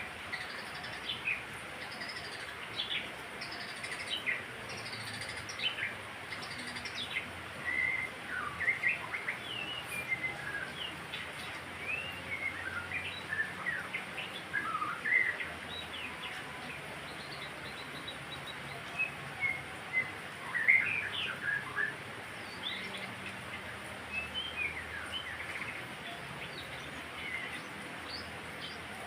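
Murai songbird singing: a varied stream of quick chirps, whistles and short trills, with loud phrases scattered throughout over a steady faint hiss.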